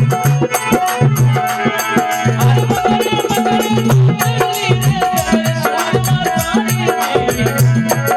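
Instrumental passage of a Rajasthani folk bhajan: a steady drum rhythm with shaker-like rattles under a sustained melody line, with no singing.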